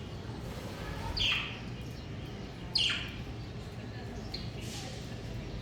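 Budgerigars chirping: several short, sharp calls that drop quickly in pitch, spaced a second or more apart, over a steady low hum.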